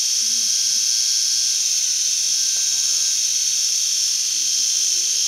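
Small AAA-battery electric epilator running with a steady high-pitched whine while held against the wrist, pulling out hair.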